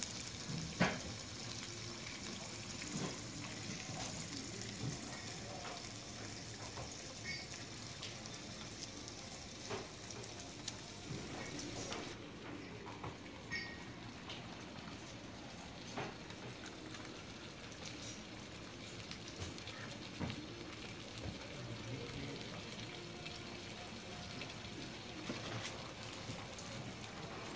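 Ham and egg frying on a tabletop grill plate over a small burner: a steady sizzling hiss that grows fainter about twelve seconds in, with occasional light clicks.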